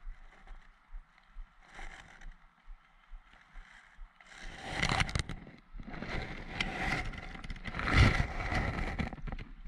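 Leafy branches and twigs rustling, scraping and crackling close to the microphone as it is pushed through dense undergrowth. The rustling starts about four seconds in and is loudest near the end.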